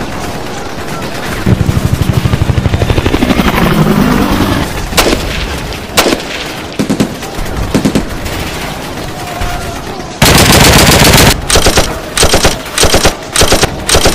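Automatic gunfire: a long rapid burst, then a few single shots, then a loud sustained burst about ten seconds in followed by several short bursts in quick succession.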